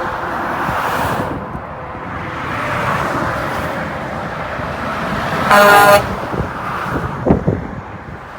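Steady highway traffic noise, then one loud truck horn blast lasting about half a second, a little past the middle.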